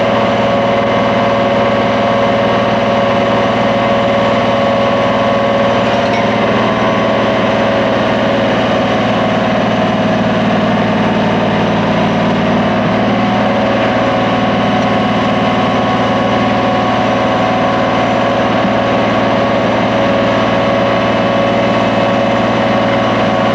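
Pacific-Tek PV-350 truck-mounted vacuum excavator running steadily, its engine and vacuum blower giving a loud, even hum with several held tones as the suction hose draws soil out of a cored hole.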